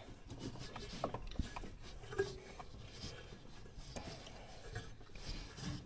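Faint, scattered clicks and light rubbing as hands work the drive belt and a threaded clutch-opening tool at a snowmobile's driven clutch, which has been spread open to release the belt.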